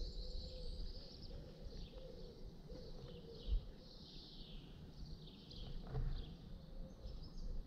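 Quiet outdoor ambience with faint birdsong chirping and a low rumble underneath. A single soft thump about three and a half seconds in.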